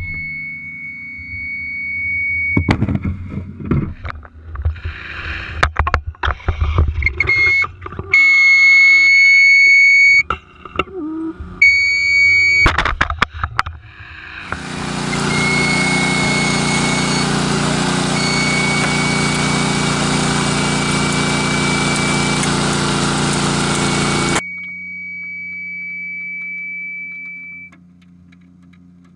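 Hydraulic rescue spreaders forcing a car door off at its hinges: a steady high whine runs under repeated sharp cracks and pops of bending and tearing metal, then about ten seconds of loud, steady noise.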